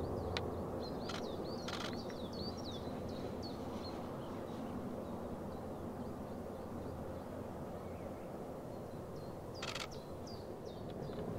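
Steady distant rumble of an Airbus A400M Atlas's four turboprops, with small birds chirping over it in quick runs, mostly in the first few seconds and again near the end, and a few short clicks.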